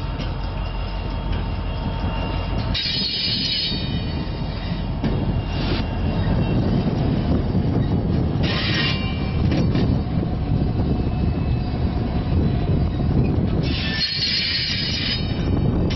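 Loaded DODX military flatcars rolling slowly, with a steady low rumble from the wheels on the rails. Three brief high-pitched wheel squeals break through: about three seconds in, about eight and a half seconds in, and a longer one near the end.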